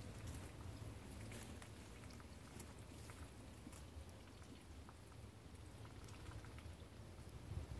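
Muscovy ducklings dabbling with their bills in a muddy puddle: faint wet clicking and pattering, over a low steady hum.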